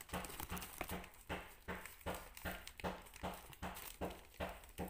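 Plastic zip-top bag rustling as its seal is pressed shut, over a steady ticking of about two and a half clicks a second.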